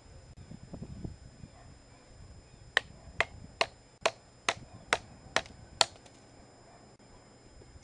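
Knife work on a thin green stick resting on a log: eight sharp, even knocks, about two a second, as the blade is struck into the wood.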